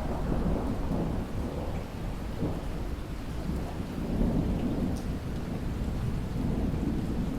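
Rolling thunder over steady rain: the rumble comes in abruptly right at the start and rolls on in several deep swells through the rain's hiss.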